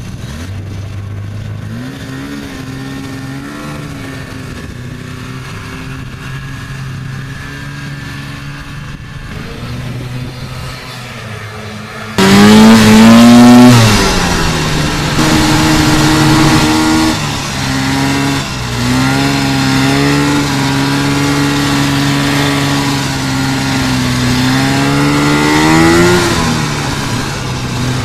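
Two-stroke engine of a 440 cc Kawasaki Intruder snowmobile running. About twelve seconds in it suddenly gets much louder and revs up, then runs on at a steady speed with the pitch shifting as the throttle changes, rising near the end and dropping back.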